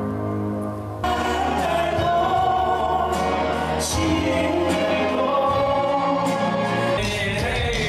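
Music with group singing, sustained sung notes over accompaniment; the music changes about a second in and again near the end.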